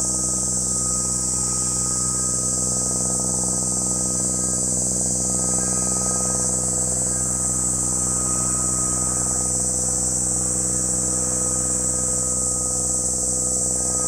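Cicadas calling in a continuous, steady high-pitched chorus over a steady low hum.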